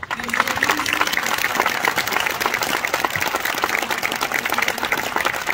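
Audience applauding: many hands clapping at once. It breaks out suddenly and holds steady.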